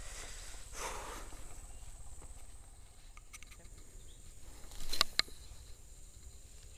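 Handling noise from a small spinning rod and reel, with faint scattered clicks and one short, sharp click or knock about five seconds in, over a faint steady high insect drone.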